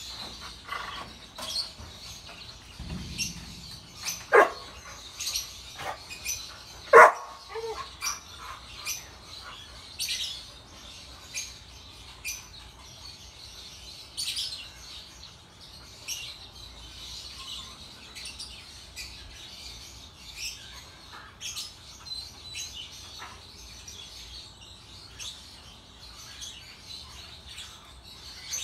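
Small birds chirping on and off with many short, high calls. Two louder, short, sharp calls that sweep downward stand out about four and seven seconds in.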